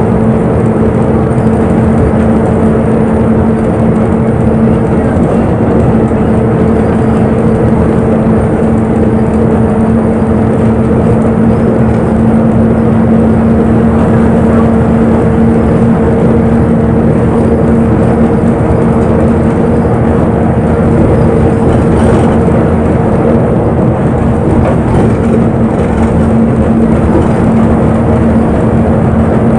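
Inside a town bus on the move: the engine's steady drone with a constant low hum over road and cabin noise, holding even throughout.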